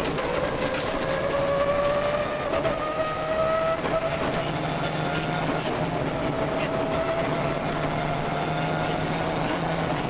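Subaru Impreza 555 rally car's turbocharged flat-four engine, heard from inside the cockpit at speed. The revs climb over the first three to four seconds, then hold high and fairly steady.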